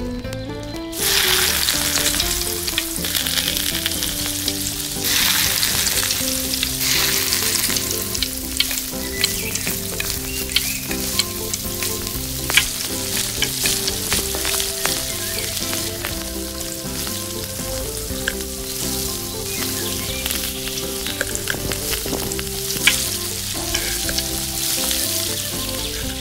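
Hot oil sizzling and crackling as small dough rings fry in a miniature pan. The sizzle starts suddenly about a second in, swells again about five seconds in, and is dotted with sharp pops while a tiny spoon stirs the rings.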